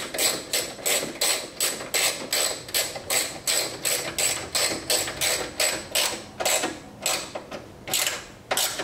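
Hand ratchet wrench clicking in a quick steady rhythm, about three clicks a second, as small bolts are tightened down. The clicks space out and stop near the end.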